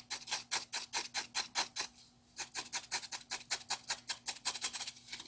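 A thin pointed tool scraping and digging out dry floral foam in quick short strokes, about five or six a second, with a brief pause about two seconds in.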